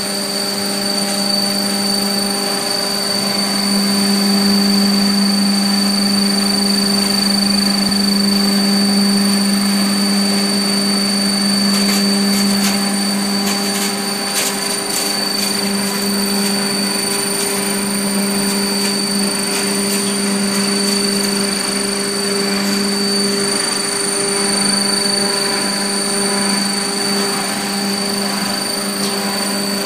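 Hammer mill running steadily while crushing tree bark into sawdust: a loud, even machine drone with a strong steady hum. A scatter of light ticks comes about halfway through.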